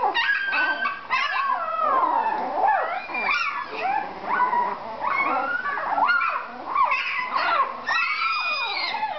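Very young puppies whining and yelping, many high sliding cries overlapping one another: newborn pups crying for their mother.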